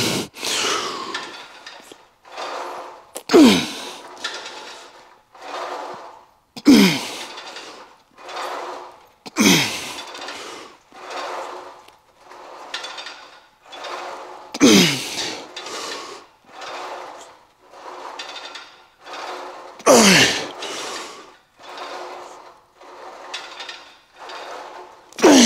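A weightlifter's forceful grunting exhales through the reps of a set, a strong one every three to five seconds, each sliding down in pitch with a breathy rush, and quieter breaths in between.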